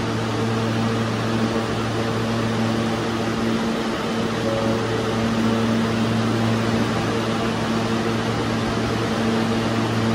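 Steady electric hum of a standing R160 subway train, its air-conditioning and auxiliary equipment running, with a low drone and a few steady tones over a hiss.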